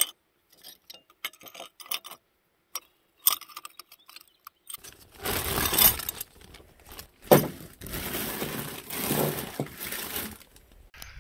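Shards of a broken glass bottle clinking as they are gathered by hand, then a plastic carry bag rustling and crinkling as it is handled, with one sharp knock about seven seconds in.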